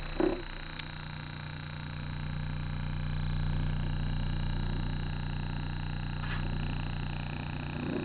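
JBL Atlas 3-inch neodymium woofer running unmounted in free air, reproducing a steady low bass tone with its cone at long excursion; the tone swells a little midway and eases back. A short knock about a quarter second in as the driver is gripped.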